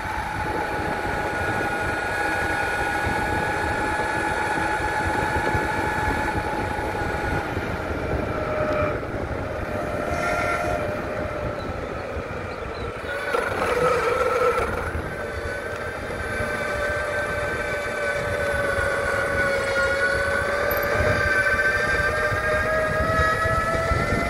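Electric mountainboard's motors whining as it is ridden, the whine slowly sinking and rising in pitch with speed, over a steady rumble of the wheels rolling. About halfway through the rumble grows louder for a couple of seconds.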